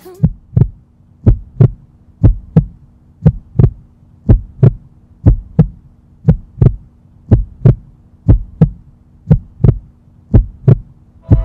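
Heartbeat sound effect: paired low thumps (lub-dub) about once a second, steady throughout, over a steady low hum.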